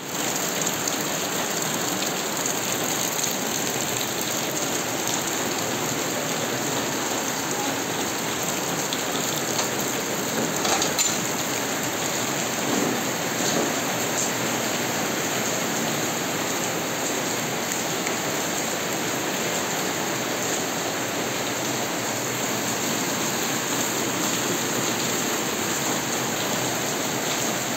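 Steady rain falling and splashing on wet ground and puddles, an even continuous hiss.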